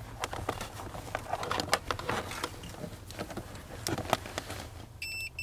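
Faint clicking and rustling of a multimeter and its test leads being handled, then near the end a steady high-pitched beep from the multimeter's continuity tester, broken once by a short gap.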